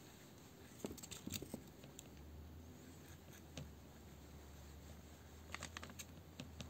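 Faint rubbing and small clicks of a wet wipe being worked over a smartphone's glass screen as the phone is handled, in two short clusters, about a second in and near the end. A low steady hum starts about two seconds in.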